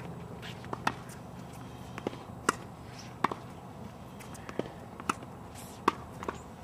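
Tennis balls being hit with a racket and bouncing on a hard court during a rally: a string of sharp pops, irregularly spaced, some clearly louder than others.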